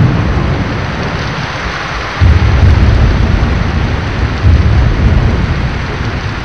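Thunderstorm: a steady hiss of rain with deep rolls of thunder, one breaking in suddenly about two seconds in and another swelling around four and a half seconds.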